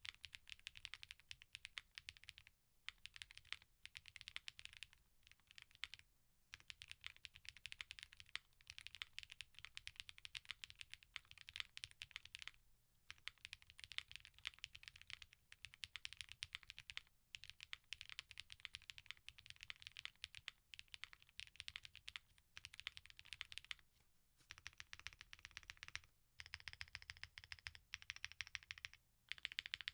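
Space65 R3 custom mechanical keyboard, with an FR4 plate, plate foam, lubed switches and stabilizers and GMK keycaps, typed on in fast continuous runs of keystrokes broken by several short pauses.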